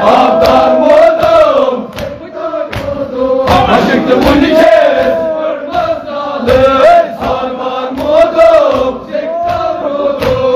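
A man chanting a Kashmiri marsiya, a mourning elegy, into a microphone in a wavering, drawn-out melody, with a crowd of mourners' voices and sharp slaps sounding throughout.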